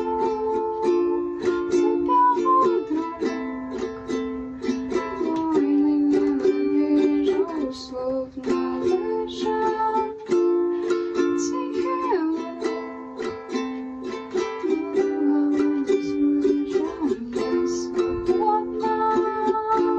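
Ukulele music without vocals: strummed chords with a plucked melody above them.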